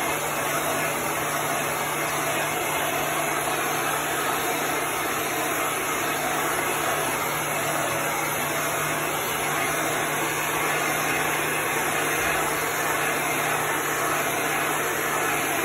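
Handheld electric heat gun running steadily, a rush of blown air over a constant low motor hum, drying fresh paint on a wooden sign.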